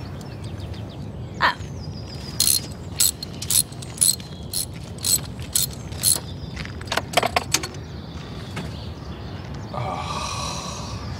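Hand tools clinking and ratcheting on metal in a car's engine bay: a string of sharp, irregular clicks and clanks. A steadier noise comes in near the end.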